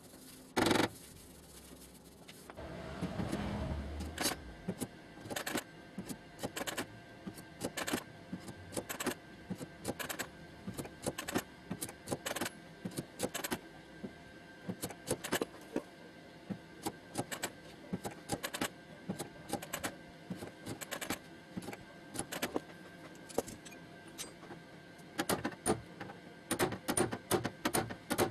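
Light hammer taps on the sheet metal of a car door during panel straightening, short sharp knocks coming irregularly, often in quick little runs, with a brief duller scraping noise a few seconds in.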